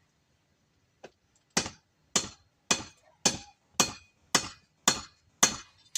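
Blacksmith's hand hammer striking metal stock on an anvil: eight even, sharp blows about two a second, starting about a second and a half in. The blows are forging the head of a small Mjölnir pendant.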